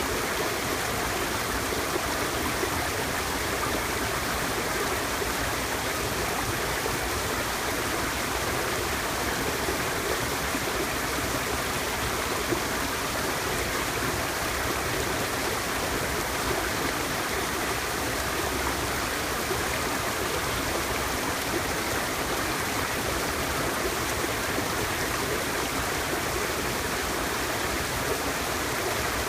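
Mountain-valley stream flowing steadily, a constant rushing of water.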